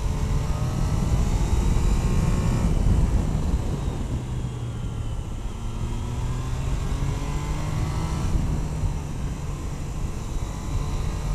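Triumph Tiger Sport 660's three-cylinder engine pulling under acceleration, its note rising twice and dropping back about 3 seconds in and again a little after 8 seconds, with wind rush on the microphone.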